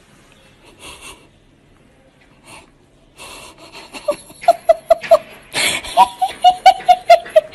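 A person laughing hard in quick, high-pitched, wheezy bursts, about five a second. The laughter starts a few seconds in and grows louder toward the end.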